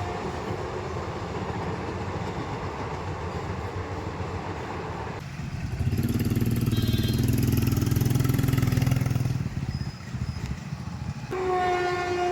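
A train running past a railway level crossing with a steady rumble. After an abrupt change, a louder, deeper engine rumble comes in for a few seconds. Near the end a horn sounds, one steady blast.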